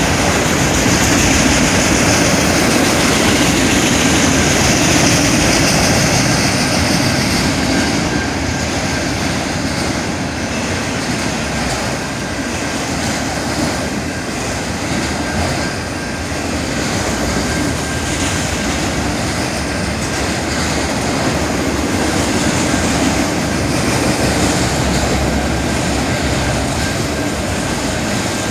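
Canadian Pacific train's cars rolling steadily past, a continuous rumble of wheels on rail with a faint thin high tone running under it, a little louder over the first several seconds.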